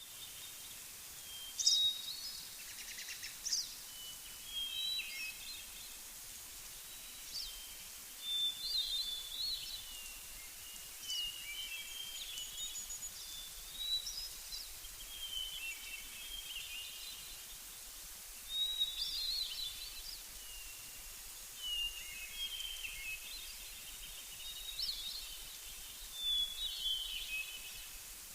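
Songbird singing short, varied chirping phrases every two to three seconds over a steady high hiss of outdoor background.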